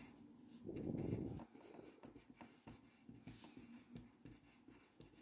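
Pen writing by hand on paper: faint scratching strokes as words are written out. About a second in there is a brief, louder low sound.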